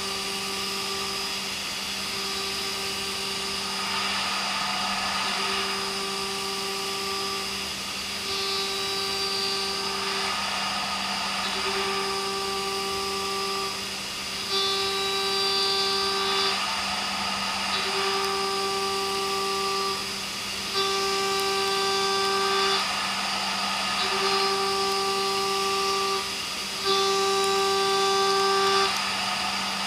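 CB Ferrari GT2000 CNC milling machine cutting H13 tool steel with a Walter cutter. A steady spindle hum runs under a pitched cutting tone. The cutting tone sounds in repeated passes of about one and a half to two seconds, with short breaks between them.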